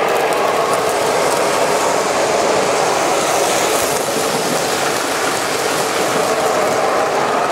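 O-gauge model trains running on three-rail track: a steady running noise of metal wheels on the rails and electric motors, with a light clickety-clack.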